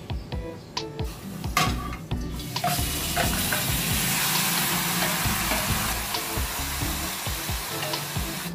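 Marinated bone-in meat pieces knocked off a metal plate into a hot stainless-steel pot with a wooden spoon, with a few sharp knocks, then sizzling steadily from about three seconds in as the meat hits the hot pan.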